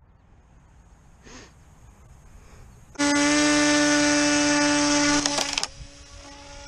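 A foam RC model plane's motor and propeller spin up about three seconds in to a loud, steady, high whine as the plane is launched. After about two and a half seconds the whine drops suddenly to a faint steady hum as the plane flies away.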